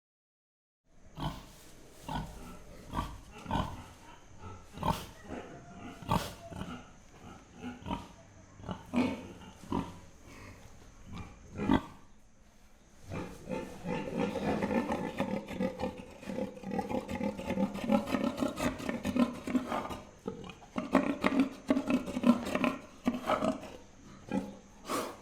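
Pig grunting. At first the grunts are short and separate, about one or two a second. About halfway through they run together into a near-continuous stretch of rapid grunting, which pauses briefly and then resumes.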